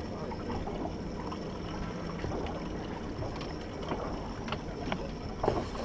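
Water lapping against a small fishing boat's hull, with a hooked fish splashing at the surface beside the boat and scattered small clicks; one sharp knock or splash stands out about five and a half seconds in.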